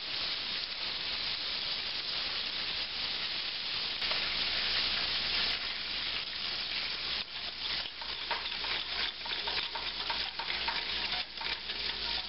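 Butter-and-flour roux sizzling and foaming in a stainless steel saucepan as the flour cooks in the fat. From about halfway, a wire whisk clicks and scrapes against the pan.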